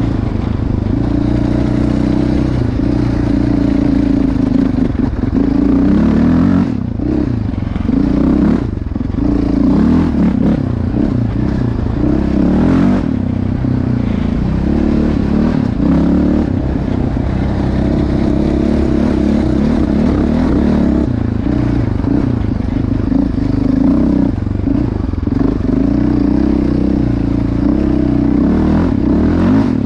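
Yamaha Raptor 700R SE's single-cylinder engine running through a Yoshimura RS-4 exhaust, its pitch rising and falling with the throttle, with short let-offs about seven and nine seconds in.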